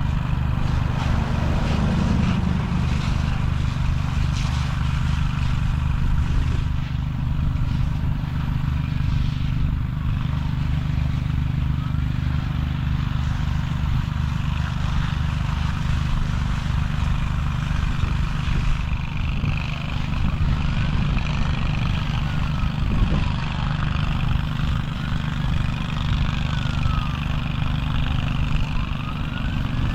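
A vehicle engine runs steadily throughout. From about two-thirds of the way in, a fainter siren wails up and down every few seconds: an emergency vehicle's wail siren.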